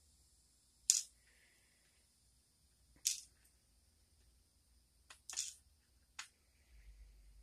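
Small metal clicks and taps, about five spread out, as the pin stack of a pin-tumbler lock is taken out piece by piece and the pins and tools are handled.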